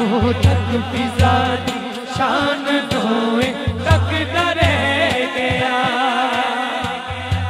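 Men singing a Punjabi devotional manqabat into microphones, a lead voice with others joining, drawn out in long ornamented phrases over a low steady hum and sharp clicks.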